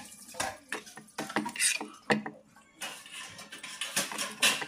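Metal spatula scraping and clinking against a kadai as cooked mushrooms are scooped out of the pan: an irregular run of scrapes and knocks, the sharpest near the end.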